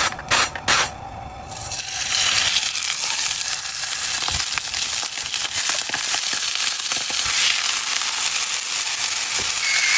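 A few sharp clinks and taps in the first second or so, then food sizzling steadily in a hot pan, with small crackles.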